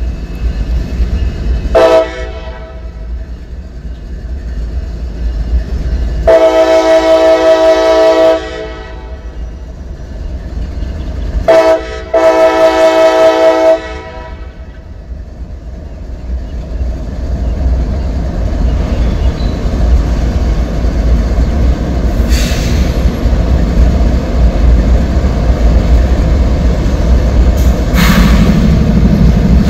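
CSX freight train's diesel locomotive sounding its air horn for a grade crossing: a short blast, a long blast, then a short and a long blast close together. After the horn, the low rumble of the locomotives and train grows steadily louder as it nears.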